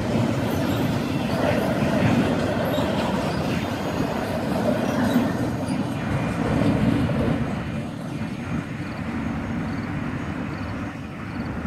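Freight train cars rolling past, a steady heavy rumble of wheels on rail that eases somewhat in the second half.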